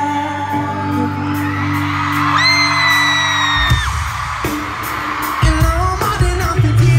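Live pop-rock band playing and singing, heard from within the audience. A shrill high-pitched scream from a fan is held for just over a second, about two and a half seconds in, and heavier bass and drums come in just after it.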